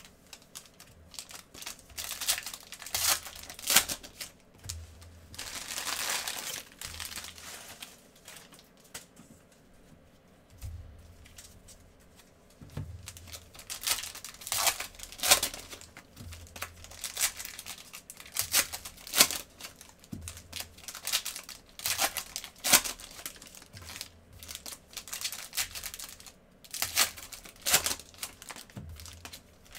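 Foil trading-card pack wrappers being torn open and crinkled by gloved hands, with the stacked cards slid out: irregular short crackles and rips, one longer tearing stretch about six seconds in.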